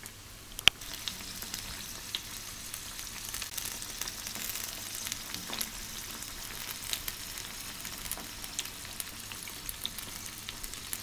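Breaded chicken cordon bleu roll deep-frying in a pan of oil: the oil sizzles steadily around it with many small crackles and pops. A single sharp click comes just under a second in.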